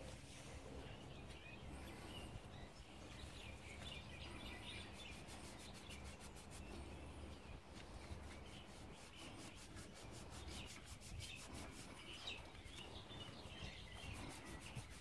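Cloth rag rubbing and wiping the threads of brake caliper bolts to clean them before thread lock goes on: faint, irregular scrubbing.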